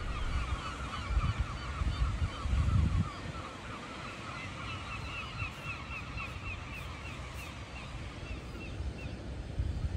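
Birds calling in quick, repeated short notes: a lower-pitched run for the first few seconds, then a higher-pitched run until near the end. Wind buffets the microphone for about the first three seconds.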